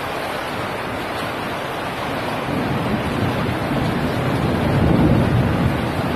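Heavy downpour in a thunderstorm, a steady rushing of rain with wind buffeting the microphone. It swells louder, with a deeper rumble, about five seconds in.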